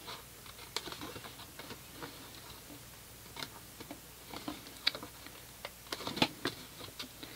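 Small scissors cutting through cardstock: irregular crisp snips and blade clicks, with a quick run of louder snips about six seconds in.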